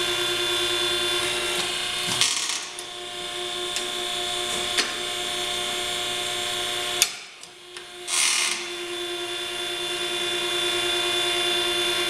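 Hydraulic pump running with a steady whine as it drives the pipe bender's cylinder through a bend in 1.5-inch pipe. About seven seconds in it cuts off with a click, and a second later it comes back with a brief rush.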